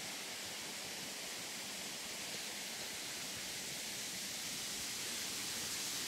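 Steady rushing of water from the cascading waterfall stream below, an even hiss growing slightly louder near the end.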